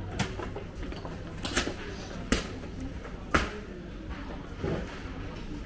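Supermarket ambience: a steady low hum with a few scattered sharp clacks and knocks, the two loudest in the middle.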